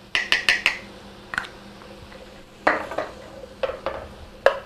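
Spoon knocking and scraping in a stainless steel skillet while chopped bell pepper and garlic are stirred: four quick taps near the start, then scattered knocks and scrapes.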